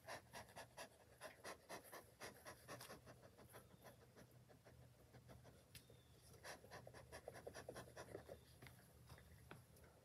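Bee smoker's bellows being pumped, faint puffs about three a second for the first few seconds, then another run of quicker puffs later on.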